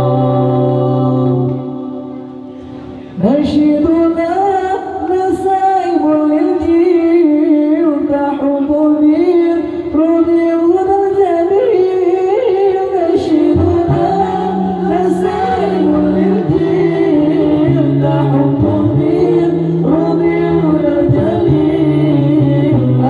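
Men chanting Islamic dhikr a cappella into microphones. Several voices hold a long chord at first, then after a brief drop a single voice sings a wavering, ornamented melody, and from about halfway a lower voice holds long sustained notes beneath it.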